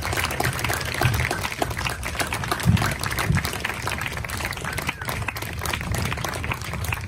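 Audience applauding with dense, steady clapping, and two low bumps near the middle.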